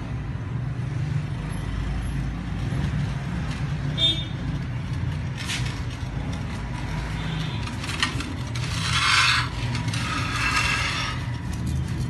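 Metal clinks and scrapes as small steel baking rings of nan khatai dough and a steel bowl are handled, over a steady low background rumble. There is a sharp clink about four seconds in, then longer scraping sounds near the end.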